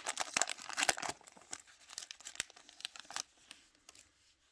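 A trading-card pack wrapper being torn open and crinkled: dense crackling, loudest in the first second or two and dying away near the end.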